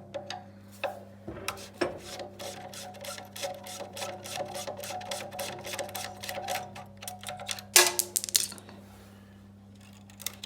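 Hand tools clicking and scraping against the chop saw's housing as it is taken apart to reach the motor brushes: a quick run of clicks over several seconds, then a louder clatter near the end, over a faint steady hum.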